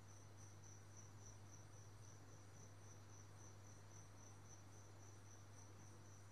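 Faint crickets chirping in a steady pulsed trill, about four to five pulses a second, over a low steady hum.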